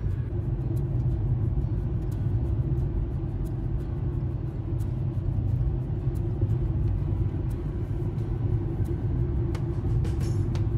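Car driving at highway speed, heard from inside the cabin: a steady low rumble of tyres and engine with a faint steady hum above it.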